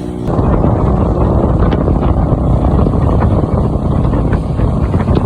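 KTM Duke motorcycle running at speed, with its engine noise and heavy wind buffeting on the microphone making a steady low roar.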